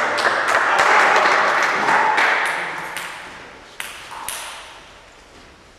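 Table tennis ball clicking, a run of sharp pings as it bounces on the table and bats, over a rushing background noise that fades out within the first three seconds. Two more clicks come about four seconds in.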